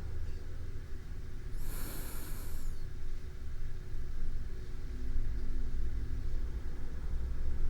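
A sleeping person's breathing close to a binaural microphone: one soft, airy breath about two seconds in, over a steady low rumble.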